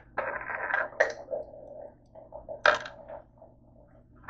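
A blue plastic cap and small white tablets handled on a wooden tabletop: a scraping rattle for most of a second at the start, then scattered light clicks and taps, the sharpest about two and a half seconds in.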